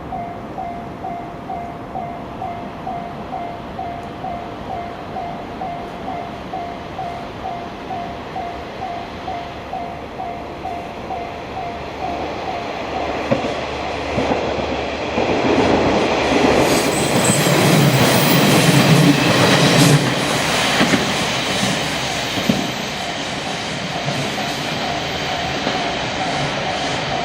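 A Japanese level-crossing warning bell dings in a steady repeating rhythm. A train then approaches and passes over the crossing, loudest about 15 to 21 seconds in, with wheels clicking over rail joints and some wheel squeal, and fades away. Near the end the crossing bell is heard again.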